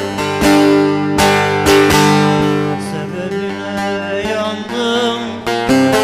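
Bağlama (long-necked Turkish saz) playing a plucked melody, with quick picked strokes over ringing, droning strings, as an instrumental passage before the song.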